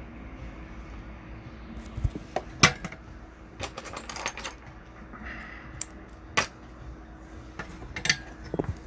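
Scattered sharp clicks and taps of small tools being handled and set down on a microsoldering bench, starting about two seconds in and bunching up near the end, over a steady hum of bench equipment.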